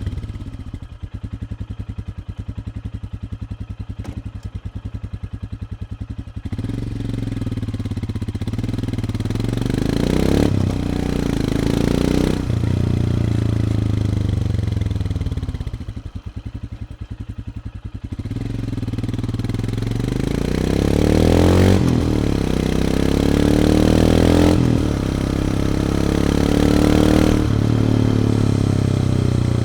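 2020 Royal Enfield Himalayan's single-cylinder engine through its standard silencer, recorded from the bike, with a somewhat muffled exhaust note. It idles with an even beat for about six seconds, then pulls away and accelerates through several gear changes. Around the middle it eases off before accelerating and shifting up again.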